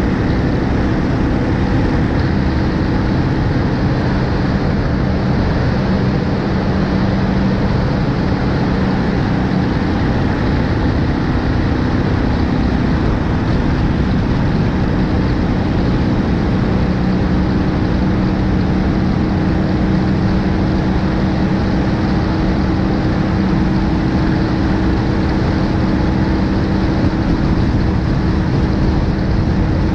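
Steady rushing wind and road noise on a GoPro mounted on the front of a BMW R1250 GS Adventure motorcycle at cruising speed, with the even hum of its boxer-twin engine underneath.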